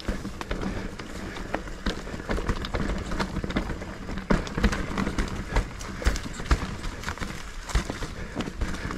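Mountain bike rolling over a rough, rocky trail: many irregular knocks and rattles from the tyres and bike over a steady rushing noise.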